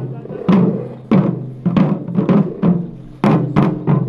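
Festival drumming: a Japanese taiko drum struck with sticks in a loose rhythm, about two strokes a second, each stroke ringing out before the next, over a steady low hum.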